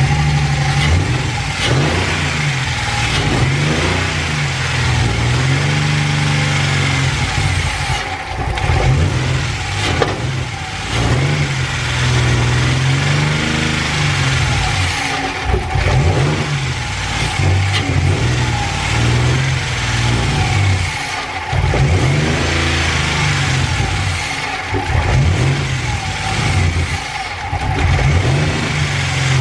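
Freshly swapped-in straight-six of a BMW E46 330i running and being revved up and down again and again, its pitch rising and falling with each rev.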